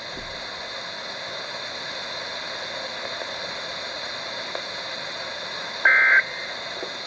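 Weather radio receiver hiss for about six seconds, then one short, raspy two-tone burst of SAME digital data, the first of the end-of-message codes that close a NOAA Weather Radio alarm test.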